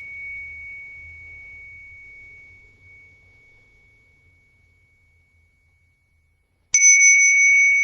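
A high, pure-toned bell ringing out and slowly fading almost to silence, then struck again sharply near the end. The ring is the cue bell for a fast breath in a breathing meditation.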